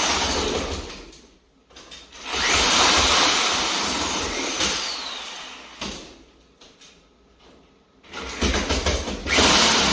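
Power drill boring through plaster and lath in three separate runs, the motor's pitch climbing as it speeds up and falling as it winds down.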